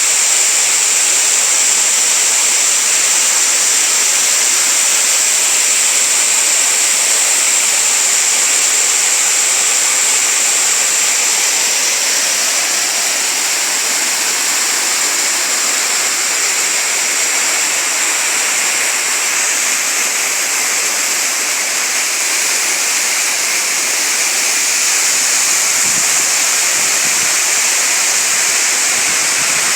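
Water falling and rushing over a small waterfall into a stream: a loud, steady hiss that stays much the same throughout.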